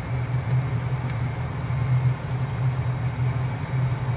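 Steady low mechanical hum of a running household appliance, with a faint click about a second in.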